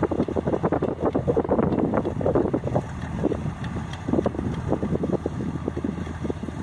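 Combine harvester running while its unloading auger pours paddy grain into a lorry: a steady low engine hum with a rough, uneven rushing noise over it.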